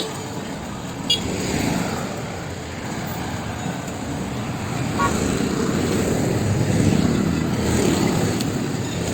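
Road traffic rumble that grows louder about seven seconds in, with a couple of faint clicks.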